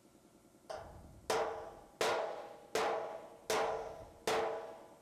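Body hammer striking the sheet-steel fender panel about once every three-quarters of a second, six blows beginning about a second in, each leaving a short metallic ring; the first is lighter. The blows are leveling the tacked butt seam between the patch panel and the fender so the two edges sit flush before TIG welding.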